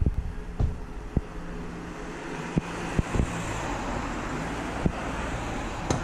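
Passing road traffic: a rushing vehicle noise that builds over the first couple of seconds and holds, with wind knocking on the microphone in scattered low thumps.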